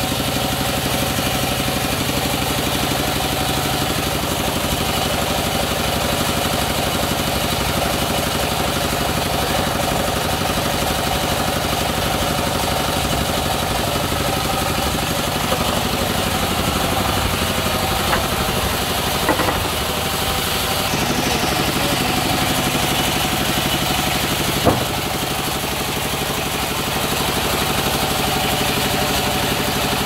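Belt-driven sawmill machinery running steadily: a constant drone from the saw and its drive, its tone shifting a little about two-thirds of the way through. A few short knocks sound near the middle.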